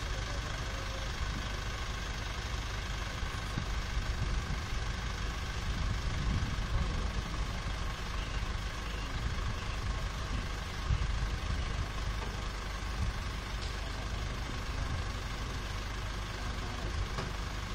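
Isuzu aerial work truck's engine idling: a steady low rumble.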